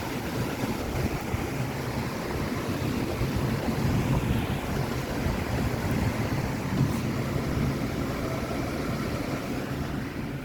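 Strong storm wind rushing and gusting, buffeting the microphone with a heavy low rumble.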